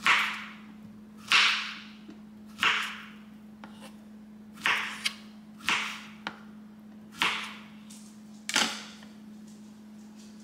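A series of seven sharp hits at uneven spacing of about one to two seconds, each trailing off in a brief hiss, over a steady low hum.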